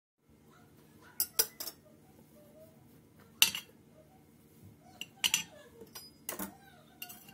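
Metal knife clinking and tapping against ceramic plates as a slice of cake is cut and served: a series of short, sharp clinks, the loudest about three and a half seconds in.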